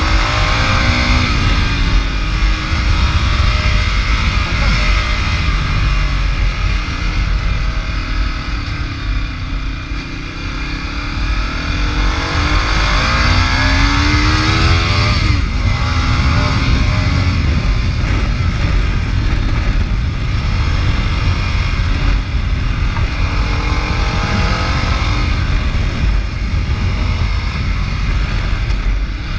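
Ducati Multistrada's V-twin engine under way, its revs climbing and dropping back several times with gear changes, over a steady rush of wind noise on the microphone.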